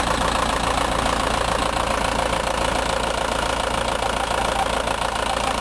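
Mitsubishi Fuso mid-range truck's diesel engine idling steadily.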